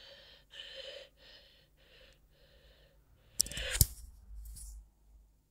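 A person breathing in short, breathy puffs right against the microphone, about two a second. About three and a half seconds in comes a loud clatter with a sharp knock, then a brief hiss.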